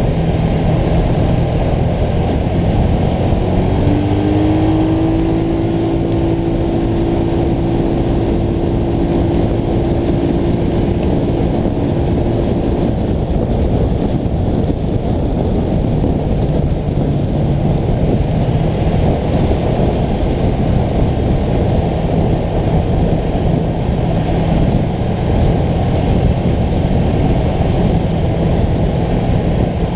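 ATV engine running as the quad drives along a dirt trail, under a loud, steady rumble of wind on the microphone. A higher engine tone rises about four seconds in and holds steady until about halfway through.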